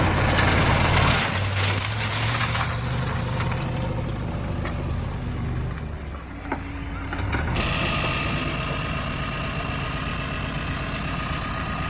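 Heavy diesel engine running, its pitch shifting a little at first, with an abrupt change in the sound's character about three quarters of the way through.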